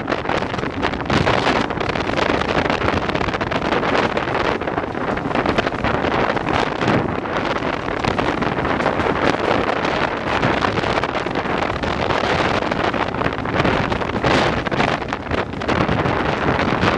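Heavy wind buffeting the microphone at the open window of a moving railway carriage, with the noise of the train running along the track underneath. Little of the steam locomotive comes through.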